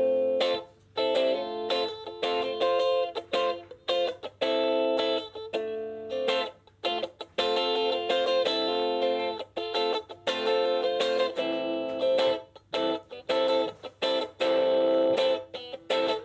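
Electric guitar played through an amp: short chords and riffs, many cut off sharply, with brief gaps between phrases.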